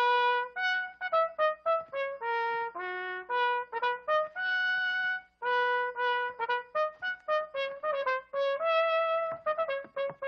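A trumpet playing a slow solo melody, one note at a time, mixing short notes with a few longer held ones.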